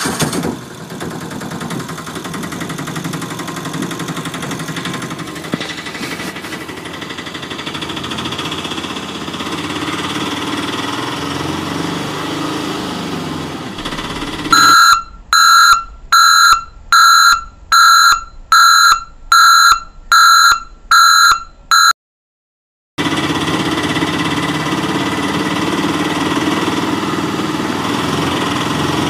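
Steady engine running noise, broken about halfway through by about ten loud electronic beeps, evenly spaced well under a second apart. After a brief silence, the engine noise returns.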